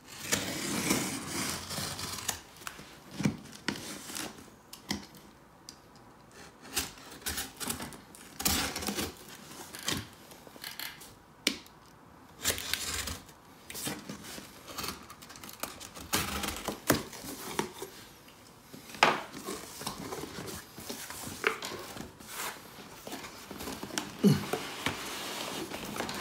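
Small blade slitting packing tape on a cardboard box, then the cardboard flaps pulled open and handled: irregular clicks, scrapes, short tape rips and crackling cardboard.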